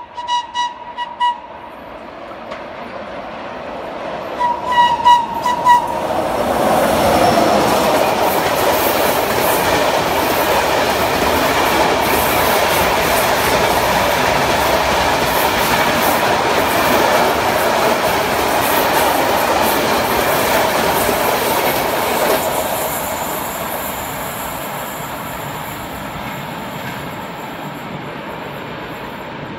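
FS E652 electric locomotive sounding a rapid series of short horn toots, then a second series about five seconds in. Its freight train of open wagons then passes close by with loud, steady wheel-on-rail noise for about fifteen seconds, fading as the train moves away.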